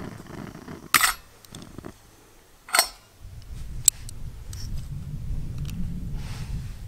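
Metal camping cutlery clinking and scraping as the pieces are pulled apart and handled: a sharp scrape about a second in, another near three seconds, and a short click just after, over a low steady rumble.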